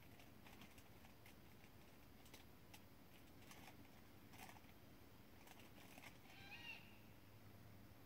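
Faint night-time outdoor ambience: scattered soft clicks and ticks over a low hiss, with one brief faint animal call about six and a half seconds in.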